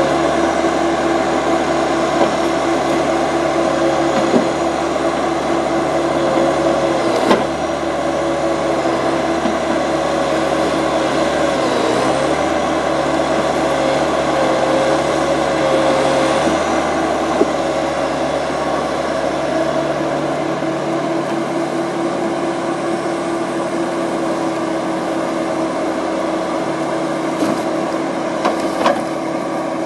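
Timberpro TF840B forwarder running steadily under load as its crane and grapple work logs, with a steady engine tone and a second tone that wavers in pitch during the first half. A few sharp knocks of logs striking come about seven seconds in and twice near the end.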